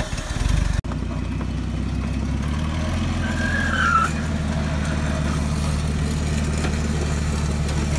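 Old propane-fuelled Yale forklift engine running steadily at a low, even pitch as the forklift drives and tows a riding mower on a chain. There is a brief dropout just under a second in and a short squeal about halfway.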